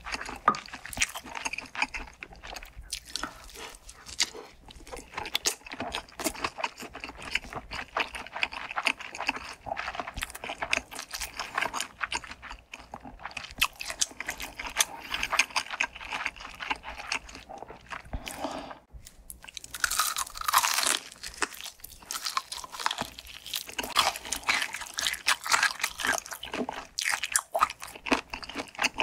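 Close-miked eating: crunchy bites and wet chewing of fried food, a dense run of crisp crackles, louder and sharper for a couple of seconds about twenty seconds in.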